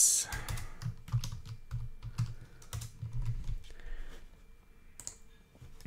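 Typing on a computer keyboard: a run of uneven key clicks with soft low thuds, thinning out after about four seconds.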